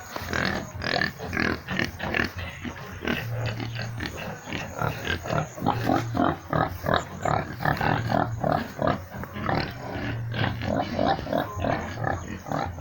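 Pigs grunting and squealing in a pen, many short, irregular calls, several a second, overlapping one another.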